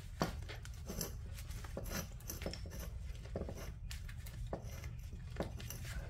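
Irregular light clicks and knocks as a polyurethane bushing is pushed and worked down onto a control arm by hand, over a steady low hum.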